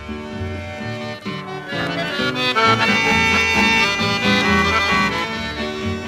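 Chamamé melody played on a button accordion over a rhythmic bass line, its notes changing quickly.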